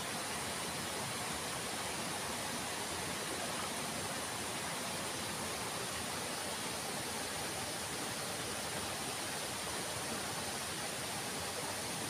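Steady, even rush of flowing water from the mountain stream and waterfall.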